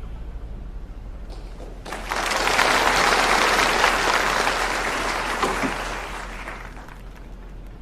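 Audience applauding, breaking out about two seconds in and slowly dying away.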